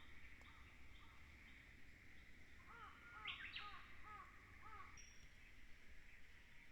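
Faint pond-side ambience with a wild bird calling: a run of about six short, arched notes starting about three seconds in, over a steady faint high hiss.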